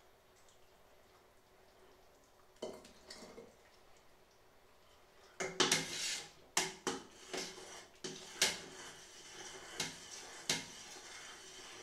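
A utensil knocking and scraping against a large stainless steel stockpot as its contents are stirred. There is a single knock about two and a half seconds in, then a run of sharper clinks and knocks through the second half.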